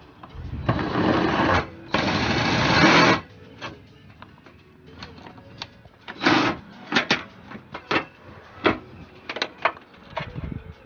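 A power tool running in two bursts of about a second each as a bolt is backed out, followed by scattered clicks and knocks of tools and metal parts.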